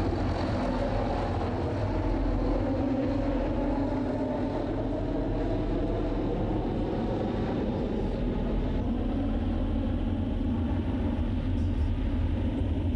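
Transall C-160 transport aircraft's turboprop engines droning steadily overhead, the pitch wavering slowly.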